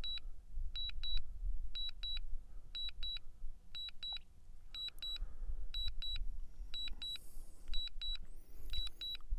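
DJI drone remote controller sounding its low-battery return-to-home warning: a high double beep repeating about once a second, under a low rumble.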